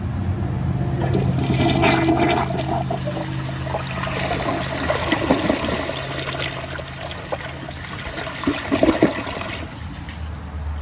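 A 2006 Kohler Wellworth toilet with Ingenium gravity flushing, flushing: water rushes through the bowl with gurgles throughout, and the rush dies down near the end.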